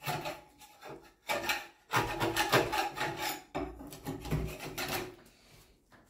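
Hand scraper dragged over a door's thick, peeling layer of gloss paint, several rough scraping strokes lifting the paint off; the scraping stops about five seconds in.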